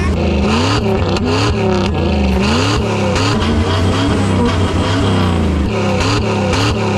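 Car engines revving, their pitch climbing and dropping again and again in quick, overlapping runs over a steady low drone.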